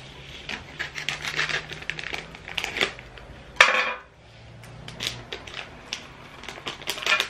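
A plastic-foil sweet packet crinkling and clicking in the hands as it is cut at with scissors: a run of small clicks and rustles, with one louder rustle about three and a half seconds in.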